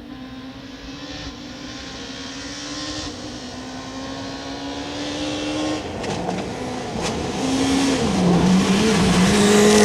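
Rally car engine approaching at speed, growing steadily louder; its pitch drops twice in the second half, with two sharp cracks about six and seven seconds in.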